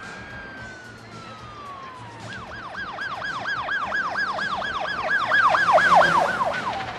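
Police car siren: a slow wail that switches about two seconds in to a fast yelp of about four sweeps a second, growing louder as the car approaches, then drops back to a falling wail near the end.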